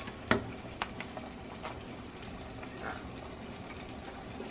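A utensil pressing and scraping red chile sauce through a metal mesh strainer into a pot, with the sauce dripping through; a few light clicks of the utensil against the wire sieve, the sharpest just after the start.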